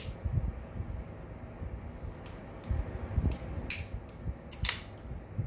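Metal clicks and clacks of an Umarex Colt Commander BB pistol being handled after reassembly: about six sharp clicks, the loudest a little under four and five seconds in, over low handling thumps.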